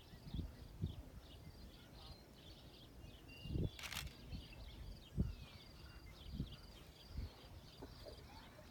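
Faint, irregular hoofbeats of a horse moving on arena footing during a dressage test. Continuous high chirping in the background and a single sharp click about four seconds in.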